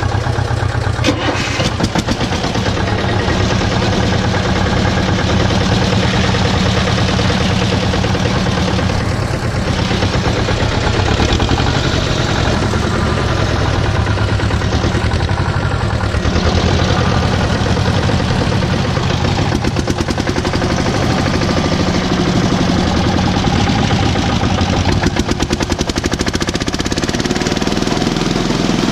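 Articulated mini tractor's engine running steadily up close under the rider, with a rapid, even clatter of firing strokes as the tractor drives slowly along a road.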